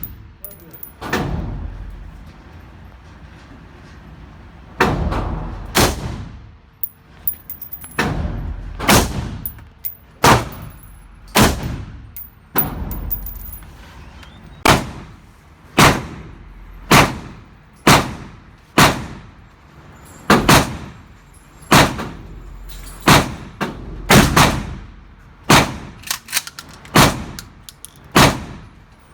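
Handgun and rifle fire on a shooting range: a long string of single shots, about one a second and coming faster near the end, each with a ringing echo.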